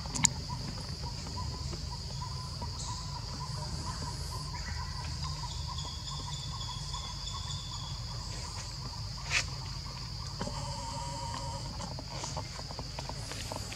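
Forest ambience: insects droning steadily at a high pitch over a low rumble. Sharp clicks stand out about a quarter second in and again about nine seconds in.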